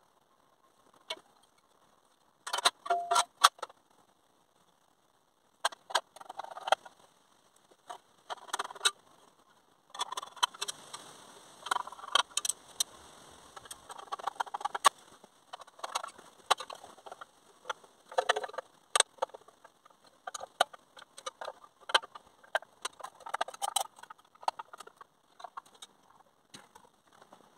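A small screwdriver scraping and prying old gasket out of the groove of a Rover V8 rocker cover: irregular clusters of sharp metal-on-metal scratches and clicks.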